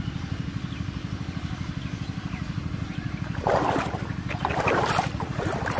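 A steady low engine chug runs throughout. From about three and a half seconds in come irregular bursts of splashing, as a hooked fish pulls a floating plastic-bottle trap through the water.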